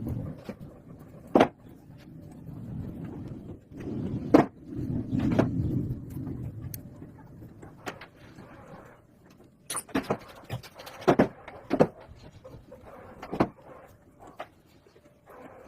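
Workshop handling noises: a string of separate knocks and clatters, like metal parts and hand tools being set down and handled during a motorcycle cylinder rebuild, over a low rumble in the first half.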